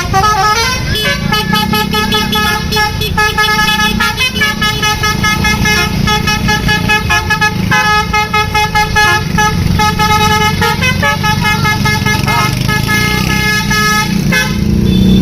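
Bus telolet 'basuri' multi-tone musical horn playing a fast melody of short, pulsing stepped notes, over a low engine rumble; the horn stops about a second before the end.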